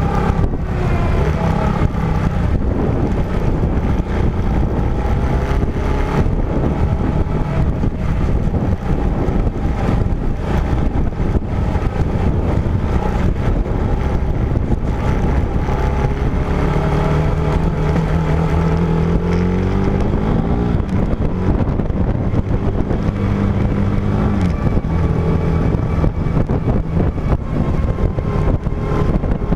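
Vehicle engine running under load on rough ground, its pitch rising in the middle, holding a few seconds, then dropping back, over a steady rumble with frequent small knocks.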